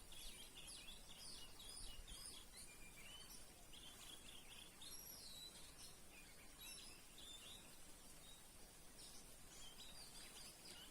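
Faint songbird song: quick, varied chirps and short whistled phrases that pause for a couple of seconds and then resume, over a steady background hiss.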